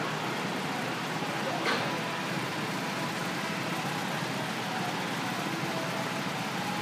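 Steady outdoor background noise with faint distant voices, and one brief click about two seconds in.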